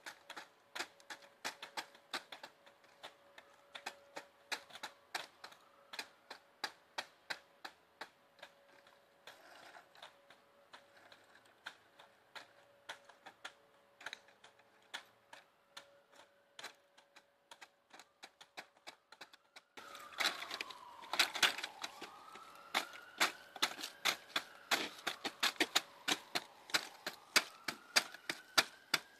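Rapid, irregular clicking and clacking of plastic BodPave porous paver grid panels as they are handled, set down and walked on in work boots, several sharp clicks a second. A faint steady tone sits under the first two-thirds, and the clicks get louder about two-thirds of the way in.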